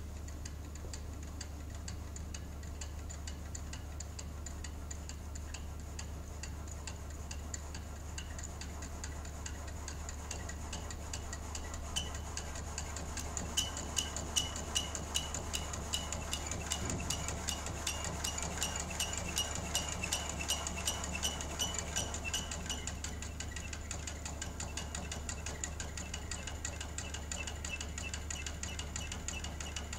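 Inerter vibration-isolation test rig running under motor drive: a steady low hum with a rhythmic mechanical ticking from the moving crank, spring and inerter linkage. The ticking turns louder and sharper partway through, then eases again.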